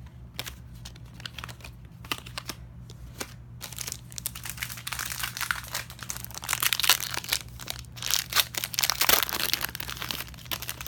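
Plastic foil trading-card pack wrapper being handled and torn open. A few light clicks come first, then dense crinkling from about four seconds in.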